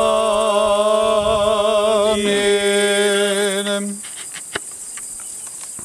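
Men's voices chanting a long, drawn-out Orthodox "Amin" in two voices, closing the blessing prayer. The chant holds for about four seconds, then stops. Insects chirp in a steady high buzz throughout.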